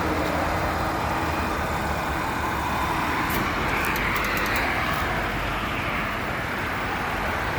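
Steady road traffic noise from cars moving through an intersection, swelling as a vehicle passes near the middle.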